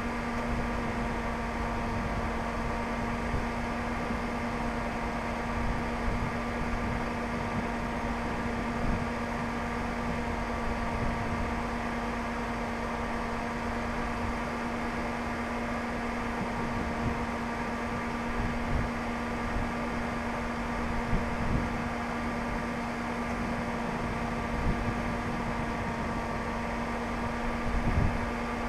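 A steady electrical or fan-like hum, with wind gusting against the microphone in uneven low rumbles, the strongest gust near the end.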